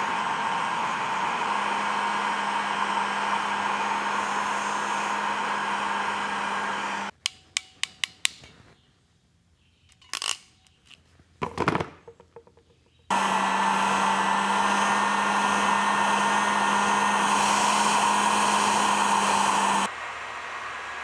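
Heat gun blowing steadily while shrinking heat-shrink tubing onto wires. It is switched off about seven seconds in, a quick run of sharp clicks and a few knocks follow, then it runs again for about seven seconds and shuts off near the end.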